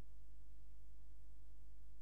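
A steady low electrical hum with buzzing overtones that does not change; no other sound stands out over it.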